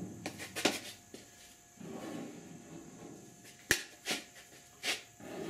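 Plastic body-filler spreader scraping and working a fresh batch of body filler on a mixing board, with several sharp clacks of the spreader on the board, the loudest about three and a half seconds in.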